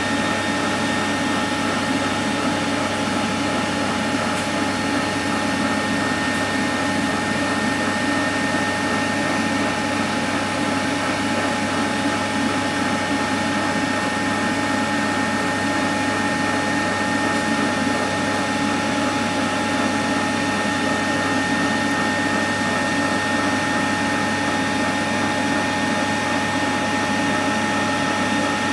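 Tefal ActiFry hot-air fryer running: a steady fan-and-motor hum with a constant high whine, as its hot-air fan blows and its stirring paddle turns the food.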